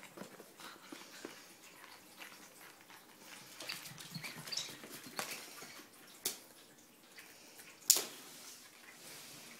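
Light scuffling, tapping and clicking of a ferret playing on a hard floor, with a sharp knock about eight seconds in.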